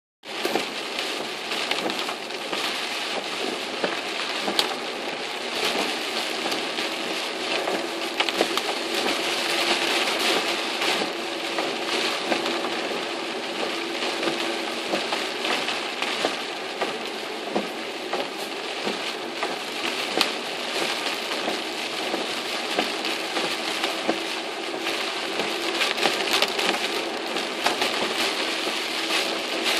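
Typhoon rain pelting a car's roof and windshield, heard from inside the cabin: a dense steady patter full of sharp drop hits, over a faint steady hum.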